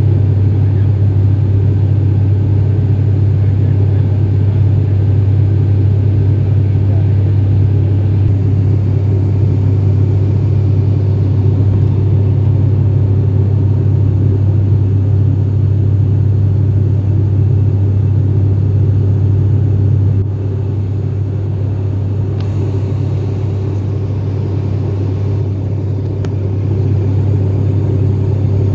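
Turboprop airliner's engine and propeller heard from inside the cabin in cruise: a loud, steady drone with a strong low hum, easing slightly about twenty seconds in.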